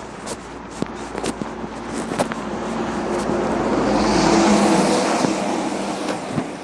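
A lorry drives past on the road close by, its engine and tyres growing louder to a peak about four seconds in and then fading as it moves away. Footsteps on the pavement tap steadily throughout.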